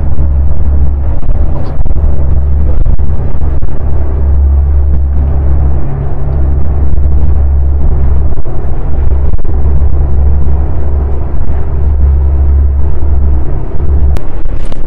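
Strong wind buffeting the camera microphone: a loud, low rumble that gusts unevenly and briefly drops out a few times.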